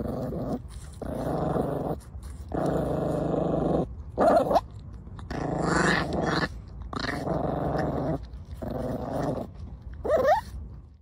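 A puppy growling in a series of growls, each about a second long with short breaks between them, while it eats an apple, with a short rising cry near the end.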